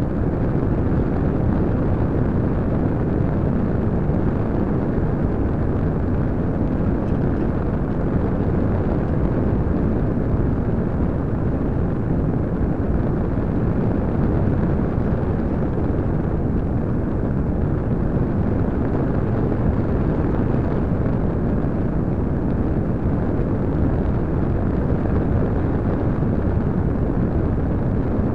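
Steady rush of wind and airflow buffeting the microphone of a small keychain camera riding on a Parkzone Radian electric glider in flight, a low, even noise with no engine note standing out.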